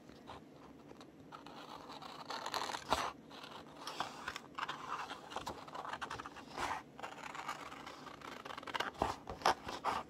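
Scissors cutting through a printed paper page in short, irregular snips, fussy-cutting around a face.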